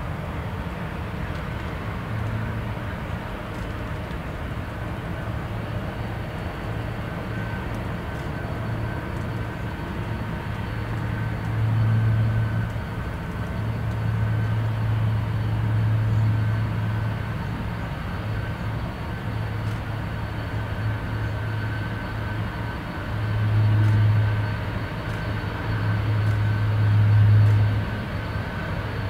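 Jet aircraft engine noise: a steady rumble with a thin, steady high whine, and a low hum that swells and fades several times.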